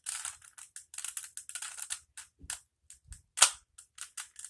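Plastic Rubik's Cube being twisted by hand: quick clicking and rattling of the turning layers, dense for about two seconds, then sparser clicks with one sharp, louder click about three and a half seconds in.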